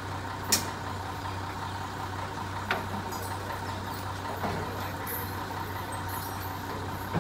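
Lorry engine idling with a steady low hum, with a few short sharp clicks, the loudest about half a second in.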